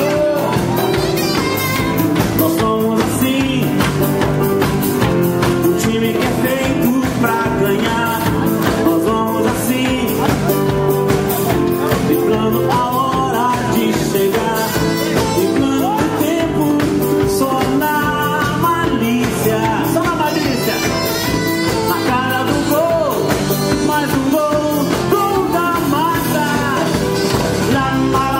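A live band playing: a man singing into a microphone over strummed acoustic guitar, keyboard and hand-drum percussion, with a steady beat.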